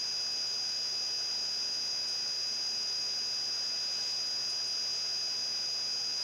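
Steady electrical hiss with a thin high-pitched whine and a faint low hum running unchanged: the recording's background noise, with no other sound.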